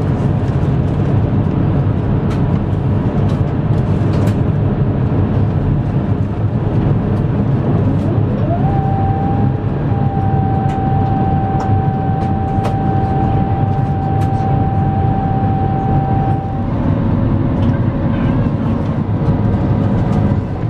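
Airbus A350-1000 cabin noise beside the wing on approach: a steady rush of airflow and hum from the Rolls-Royce Trent XWB engine. About eight seconds in, a whine rises in pitch, holds steady for around eight seconds, then stops.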